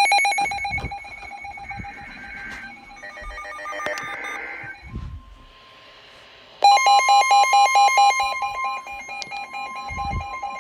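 Emergency Alert System alert tone: a harsh, pulsing two-pitch alarm. It is loud at first and then weakens among some clatter. It cuts out for over a second past the middle and blares again loudly, then settles lower near the end.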